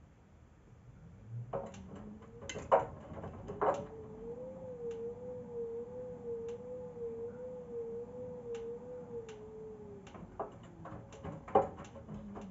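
Arctic front-loading washing machine turning its drum for a tumble on a 60° cottons programme. The motor starts with a whine that wavers up and down, and the wet laundry knocks and thuds as it drops, several times near the start and again near the end. The motor then winds down and stops.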